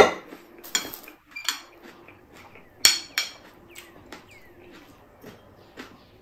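Metal serving spoon clinking and scraping against a glass salad bowl as noodle salad is spooned and tipped out onto a plate. Several sharp, ringing clinks, the loudest at the start and about three seconds in, then lighter taps.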